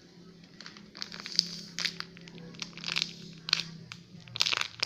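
Plastic crinkling in short bursts, a bag or wrapper being handled several times.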